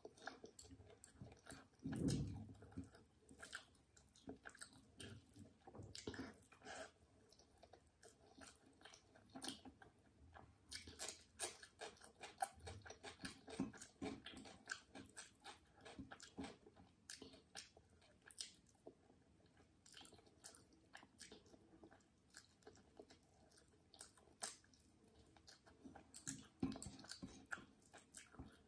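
Quiet close-miked eating sounds: a person chewing pea rice and chicken, with many small wet clicks and crackles, and fingers working rice on a plate. A somewhat louder soft thud comes about two seconds in.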